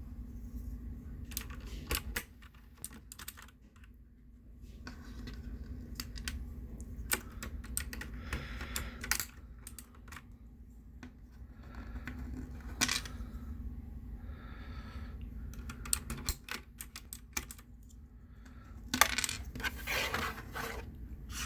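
PBT plastic keycaps clicking and clinking as they are handled and pressed onto a mechanical keyboard's switches: irregular sharp clicks with short bursts of rustling, over a low steady hum.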